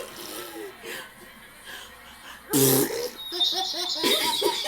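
A woman's single loud sneeze about two and a half seconds in, followed at once by a young child's rapid, high-pitched laughter.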